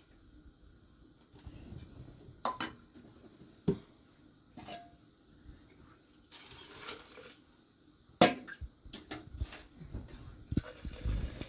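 Pots and dishes being handled: about nine scattered knocks and clinks, one with a short ring, the loudest a little past the middle.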